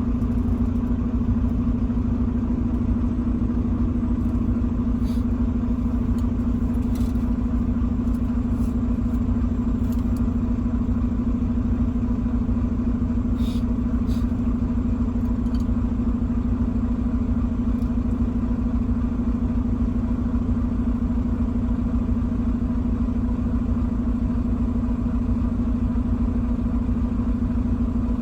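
Truck engine and road noise, a steady unbroken drone while driving, with a few faint ticks.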